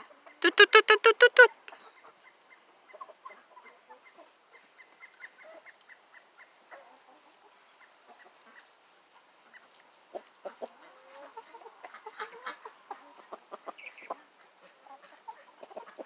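Backyard chickens clucking: a quick run of about eight loud clucks half a second in, then soft, scattered clucks and faint ticks and scratches as they peck at the ground.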